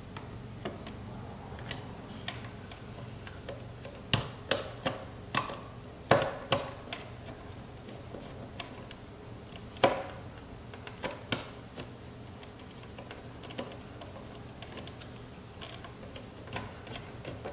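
Scattered clicks and light knocks from a hand screwdriver driving a self-threading screw into the unthreaded plastic of a car side-mirror housing. The clicks bunch up in short runs, the loudest about six and ten seconds in.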